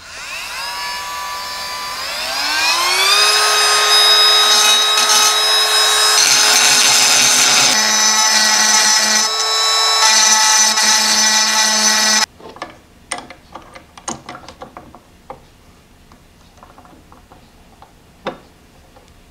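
Apex Forge cordless rotary tool with a diamond bit spinning up with a rising whine, then grinding the knurling down on a 12 mm steel shaft so a coupler will slide on. It cuts off about twelve seconds in, followed by a few light clicks of metal parts being handled.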